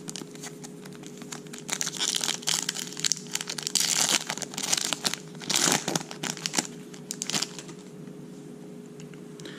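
Foil wrapper of a Topps Chrome baseball card pack being crinkled and torn open: crisp rustling that comes in bursts for a few seconds and dies down near the end, over a faint steady hum.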